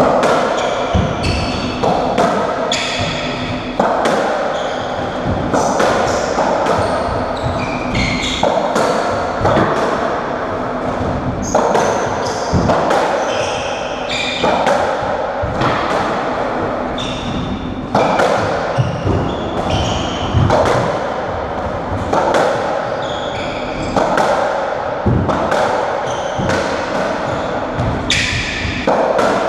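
Racketball doubles rally: the ball struck by rackets and smacking off the court walls and floor about once a second, each hit echoing in the enclosed squash court, with short high squeaks between hits.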